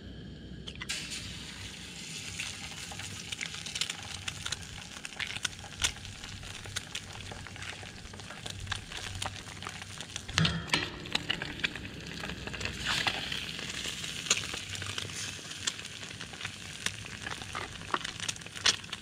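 Eggs frying in butter in a small aluminium pan on a propane camp stove, sizzling with a steady crackle of small pops. The sizzle starts suddenly about a second in, as the eggs hit the hot pan.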